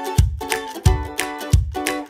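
Upbeat background music: plucked strings over a steady beat.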